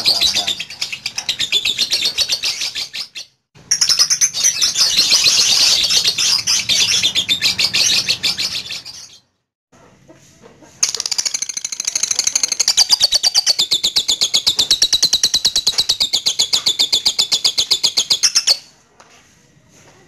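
Lovebird chattering in long runs of rapid, evenly spaced high chirps, the sustained 'ngekek' song prized in Indonesian lovebird keeping. The first run breaks off briefly a few seconds in. A pause of about a second and a half follows halfway through, then a last run of about eight seconds cuts off near the end.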